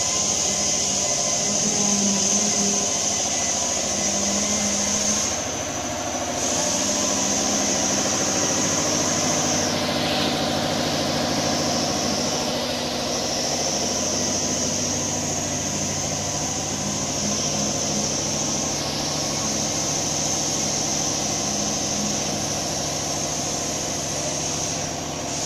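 Steady mechanical hum with a constant high-pitched hiss over it, the hiss dipping briefly a few times.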